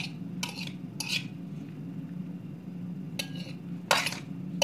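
A metal spoon scraping and clinking on a ceramic plate as diced salad vegetables are pushed off it, in four or so short strokes, over a steady low hum.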